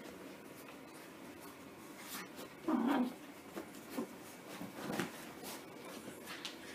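Yorkshire terrier puppy playing on a blanket: soft scuffs and rustles, with one short, low vocal sound from the puppy about three seconds in.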